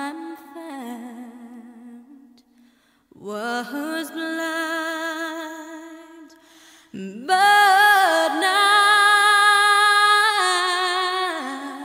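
A singer's voice holding long wordless notes with vibrato, in three phrases, with little or no accompaniment; the third phrase, starting about seven seconds in, is the loudest.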